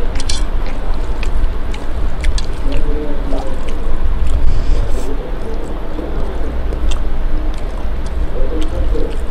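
Close-up eating sounds: fingers squishing and mixing rice with wet curry on a steel plate, and chewing with scattered small clicks and smacks, over a steady low rumble.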